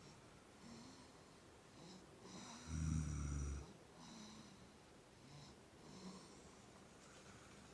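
A sleeper snoring: one loud, low snore about three seconds in, lasting about a second, with softer snoring breaths before and after it.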